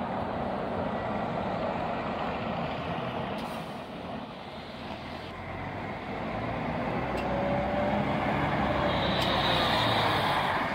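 City buses driving past close by: first a bus passing, then a Mercedes-Benz Citaro pulling away, its engine noise building as it passes, with a hiss near the end.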